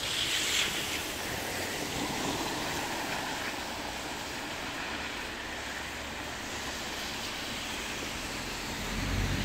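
Car tyres hissing on a rain-soaked road, over a steady wash of wet-street traffic noise. Near the end a car's engine rumble comes in.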